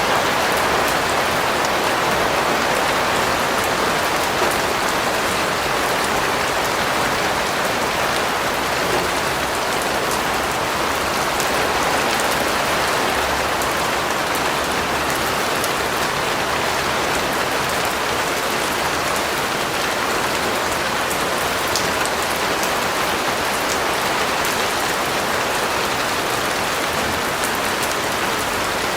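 Steady rain falling, an even hiss with many small drop hits, unchanging in level.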